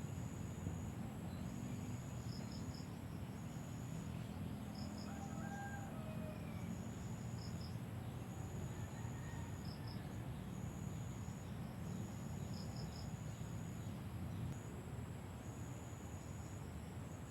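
Field insects trilling: a high-pitched trill in long stretches broken by short pauses, with a short paired chirp every couple of seconds, over a steady low rumble.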